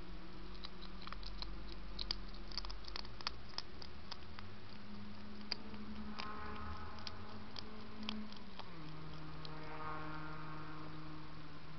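A hedgehog crunching dry food inside a feeding station: irregular sharp clicks, thick at first and sparser after a few seconds, over a steady low hum and hiss.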